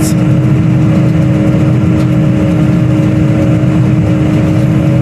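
Tractor engine running steadily under load while pulling a working round baler, heard from inside the cab as an even hum with a held tone. There is a short click right at the start.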